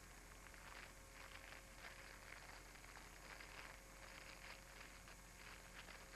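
Near silence: a faint steady hum with soft, irregular rustling and crackling that comes and goes every second or so.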